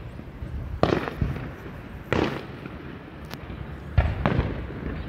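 Aerial firework shells bursting in a display, heard at a distance: about five booms, two close together about a second in, one about two seconds in, and two more close together about four seconds in.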